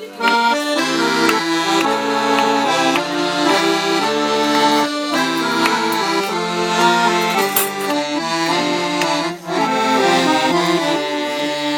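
Accordion playing a lively traditional tune, with brief pauses between phrases about nine seconds in.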